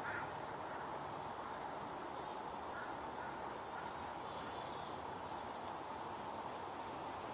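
Steady rush of a small stream, with short, faint, high bird calls coming every second or so.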